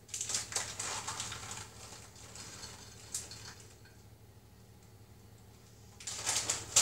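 Plastic packet rustling as currants are tipped into a mixing bowl for about the first two seconds. After a quiet stretch, sharp crinkling of a packet starts about six seconds in.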